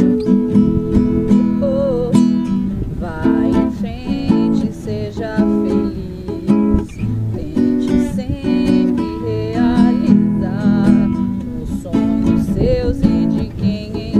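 Acoustic guitar strummed in a reggae rhythm, with short, regular chopped chords.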